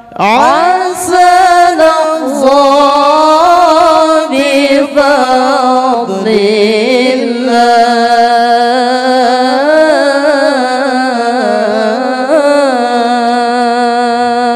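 A solo male voice singing one long ornamented phrase of zikir saman chant. It swoops up at the start, then winds up and down in pitch without a break for about fourteen seconds and stops near the end.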